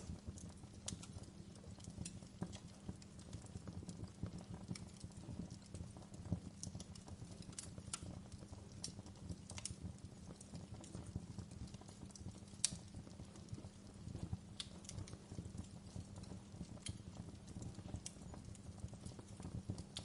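Wood fire in a fireplace crackling: irregular sharp pops and snaps over a low steady rumble of the flames, with one louder pop a little past the middle.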